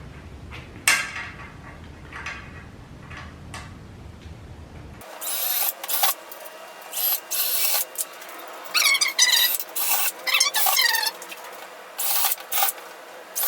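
Power drill boring pilot holes into plywood in a series of short bursts that start and stop, some with a motor whine, preceded by a sharp knock about a second in.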